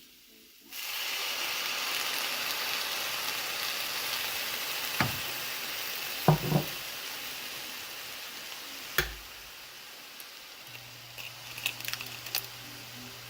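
Food frying and sizzling in a hot pan. The sizzle starts suddenly about a second in and slowly dies down, with a few sharp knocks partway through.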